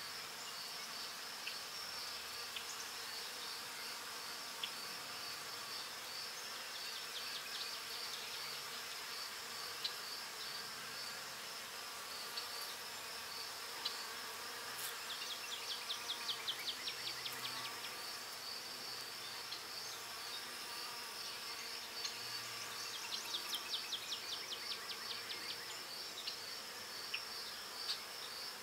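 A steady, high chorus of crickets chirping in an even pulse. Around the middle and again about four-fifths of the way through, louder runs of rapid chirps stand out.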